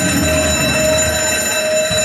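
A bell alarm clock ringing continuously, played as a recorded sound effect over the stage sound system; its lowest pitch swells and fades.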